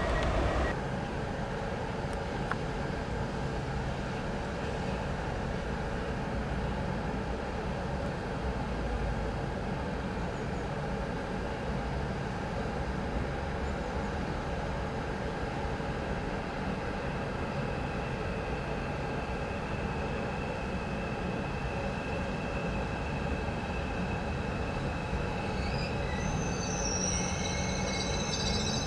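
ICE high-speed train in a station, a steady train noise with a faint hum in it. Near the end, thin high tones come in above it.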